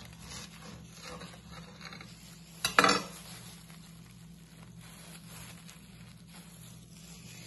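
Kitchen knife sawing through a bread-roll sandwich, with crust crackling and plastic gloves rustling, then the halves being handled. A brief louder sound about three seconds in.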